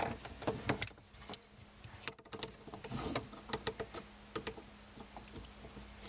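Scattered light clicks, knocks and scrapes of a hand screwdriver and plumbing parts being handled under a sink, over a faint steady hum.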